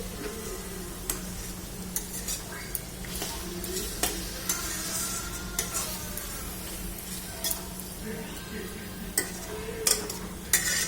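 Mutton being stirred in a thick, frying spice masala in a pan, the stirring utensil scraping and knocking against the pan in irregular clicks over a low sizzle. A steady low hum runs underneath.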